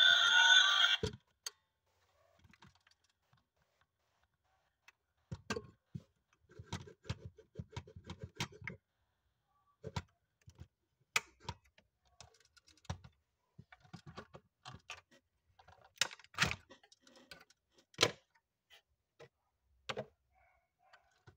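Small clicks and taps of a 1:24 diecast Toyota Tundra model being handled, with a quick run of rattling clicks a few seconds in and sharper single clicks later. Music cuts off about a second in.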